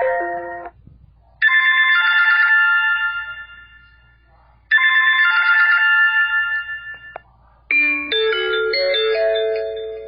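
Alcatel U5 phone ringtones playing one after another. A melody ends just under a second in, then a bell-like chime chord sounds twice, about three seconds apart, each ringing out and fading. A new ringtone melody of quick changing notes begins near the end.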